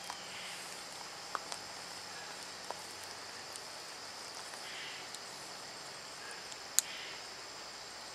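Steady high-pitched chorus of insects, with a few faint sharp clicks through it, one louder near the end.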